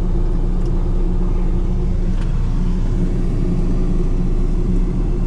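A car running along the road at an even speed: a steady engine and road rumble with a low hum and no change in pace.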